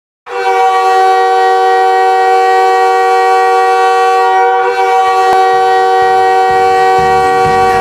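Hockey arena goal horn blowing one long, steady blast of several tones sounding together. Music starts up beneath it in the second half.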